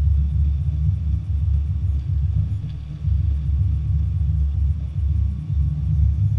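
Low, uneven rumble of wind buffeting the microphone on an open boat, with a small dip about five and a half seconds in.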